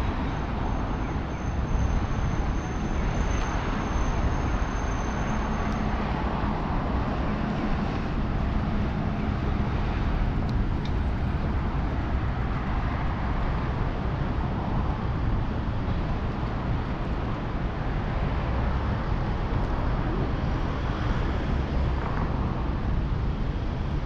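Steady city traffic noise, a constant low rumble of passing road vehicles heard while walking outdoors, with a faint high-pitched whine for the first few seconds.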